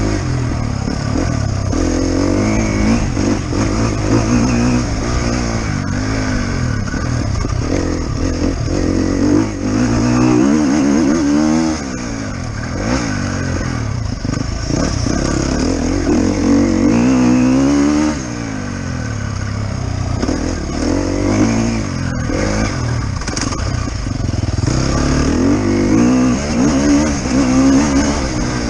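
Enduro dirt bike engine ridden hard off-road, its pitch rising and falling over and over as the throttle is opened and shut, easing off briefly a couple of times.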